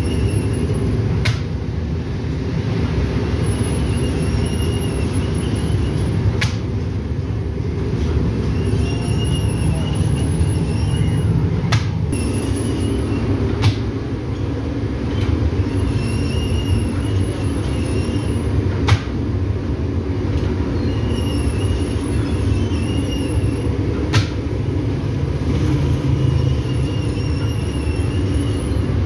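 Bakery bread-oven machinery running: a steady low rumble, with a short squeal and a sharp click that come back every five or six seconds, like a conveyor turning over.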